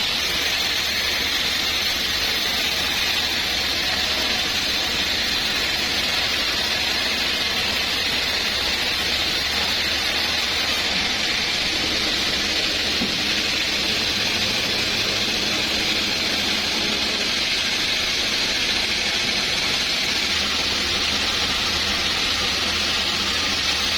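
Sawmill saw running steadily, a continuous hiss with a low hum beneath it.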